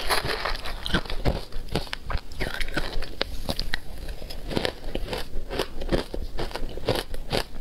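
Shaved ice being bitten and chewed in the mouth: a fast, irregular run of sharp crunches.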